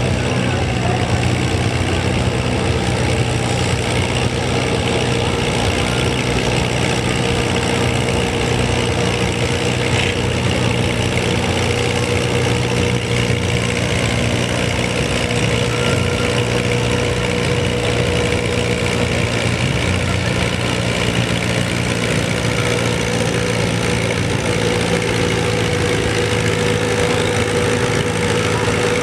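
A farm tractor's diesel engine running steadily under load as it pulls a weight-transfer sled down the pulling track.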